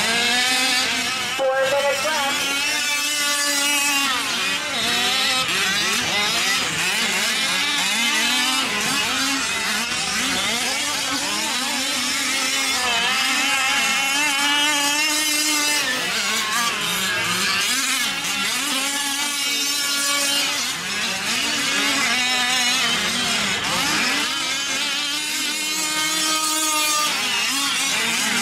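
Several 1/5-scale gas RC off-road trucks racing, their small two-stroke engines revving up and dropping back again and again, several at once and overlapping.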